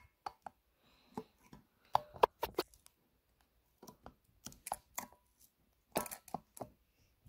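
Foil Pokémon trading-card booster pack wrapper being handled and crinkled: a string of sharp, irregular crackles and clicks with short pauses between them.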